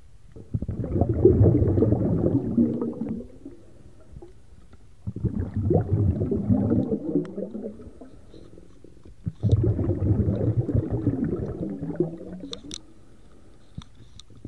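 Muffled underwater rumbling and gurgling heard through a GoPro's waterproof housing, in three surges of about three seconds each with short lulls between, as the drifting jig line carrying the camera is hauled up through the water.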